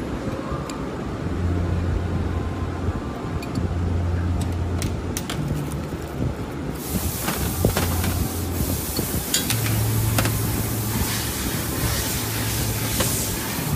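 Workshop noise: a steady low machine hum with scattered clinks of metal parts being handled on a tablet press and bench. About seven seconds in, a steady loud hiss joins.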